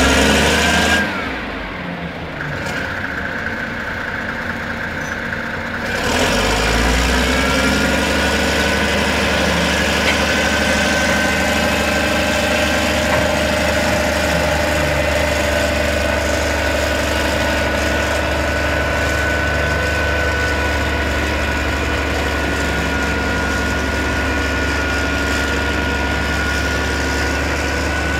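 The DEMAG BL 323 dragline's 12-cylinder Deutz diesel engine running. It drops back a little about a second in, then about six seconds in picks up to a louder, steady run with a deep drone and a steady whine over it.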